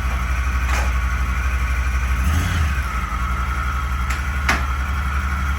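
An engine running steadily with a low, pulsing hum and a few sharp clicks.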